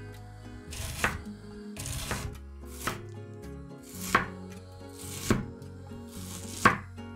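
Chef's knife slicing through a red onion, each cut ending in a knock on a wooden cutting board: six cuts, roughly one a second.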